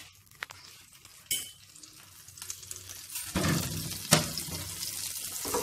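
Butter melting in a little oil in a hot frying pan and beginning to sizzle, the sizzle building from about three seconds in. A few sharp clicks come through, the loudest about four seconds in.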